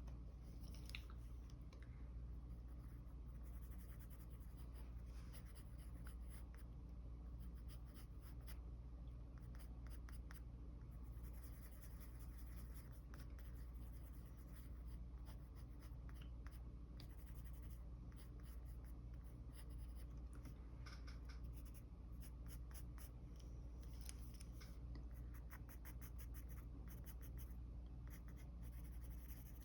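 Mechanical pencil scratching on paper in runs of quick short strokes, with pauses between runs, faint over a steady low hum.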